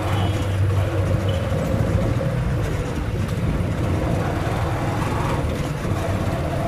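Small vehicle engine running steadily while riding along a street, with road and wind noise, heard from an open passenger seat, apparently the sidecar of a motorized tricycle.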